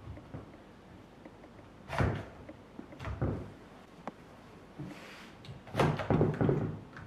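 Hard clunks and knocks from an electric scooter being handled: one sharp knock about two seconds in, another a second later, and a cluster of louder clunks near the end.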